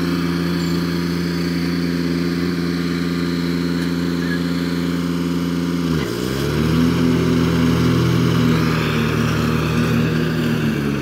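Kubota G5200 diesel garden tractor engine running steadily while mowing. About six seconds in its pitch dips sharply and recovers within a second, then it runs a little louder.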